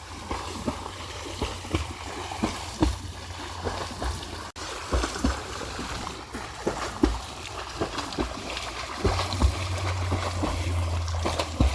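Pond water splashing and sloshing irregularly as a person swims through it, with many small splashes.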